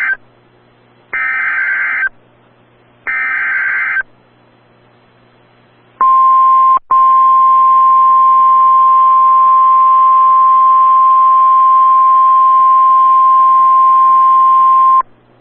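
Emergency alert SAME header bursts, screeching digital data about a second long each and a second apart: the end of one, then two more. After a pause comes the NOAA Weather Radio 1050 Hz warning alarm tone, a steady loud beep held for about nine seconds with a brief break near its start. The sequence signals that a warning, here a severe thunderstorm warning, is about to be broadcast.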